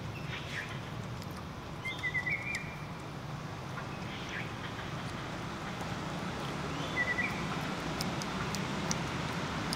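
Outdoor ambience with a steady low hum. A short high chirping call, a quick run of notes ending in a brief held note, comes twice: about two seconds in and again about seven seconds in.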